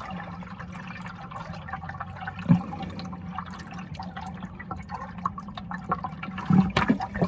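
Shallow river water sloshing and gurgling around a hand reaching in to lift a stone from the pebble bed, with many small clicks and a louder knock about two and a half seconds in and again near the end.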